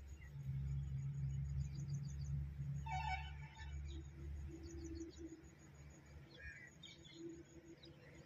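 Small birds chirping in short scattered calls, over a low rumble that is loudest in the first few seconds and then fades.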